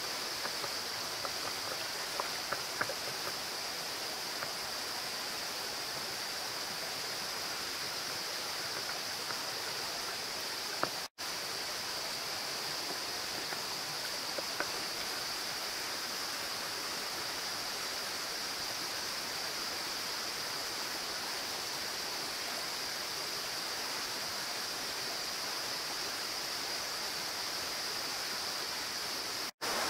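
Shallow creek water running steadily over rocks, with a few faint clicks of stones knocking together as they are handled in the water, in the first few seconds and again around ten to fifteen seconds in.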